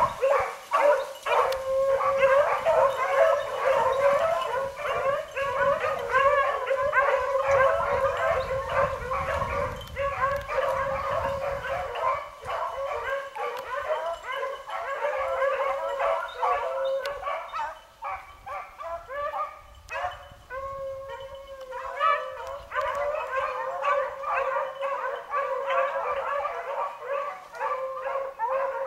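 A pack of beagles baying on a rabbit's track, many voices overlapping in a steady chorus. Past the middle the chorus thins for a few seconds to fewer, separate calls, then swells again.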